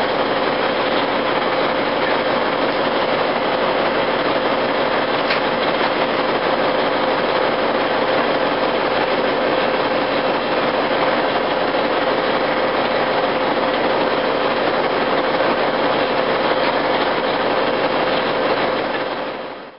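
Heavy diesel engine of the crane and ballast trucks running steadily, with a constant whine over the engine noise and a single click about five seconds in.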